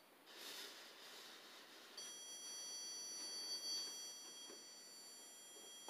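Handheld electronic stud finder giving a steady high-pitched beep, held for about four seconds from about two seconds in, signalling that it has found a stud behind the drywall.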